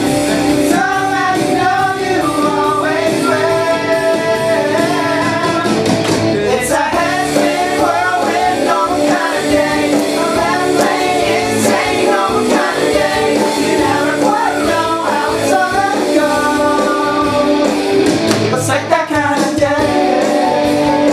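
A pop-rock song: a singer over guitar and drums.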